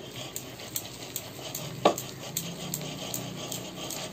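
Faint light taps and clicks of fingers setting small dabs of vadi paste onto a steel plate, over a low steady hum, with a brief squeak about two seconds in.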